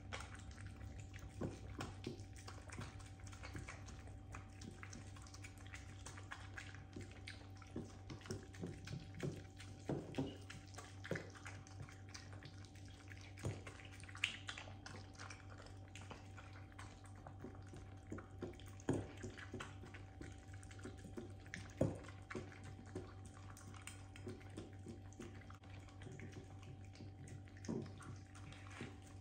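Two miniature dachshunds eating raw mince from ceramic bowls: faint wet licking, lip-smacking and chewing with scattered sharper clicks, over a steady low hum.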